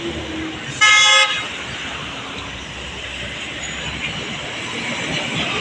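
A vehicle horn gives one short blast, about half a second long, about a second in, over the steady noise of passing road traffic.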